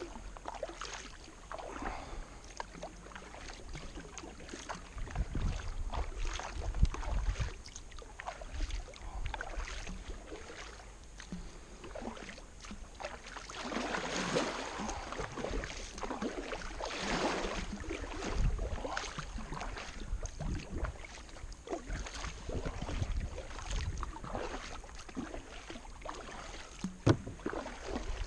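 Kayak paddle strokes splashing and dripping in the water in an uneven rhythm, with a couple of sharp knocks standing out as the loudest sounds, about a quarter of the way in and near the end.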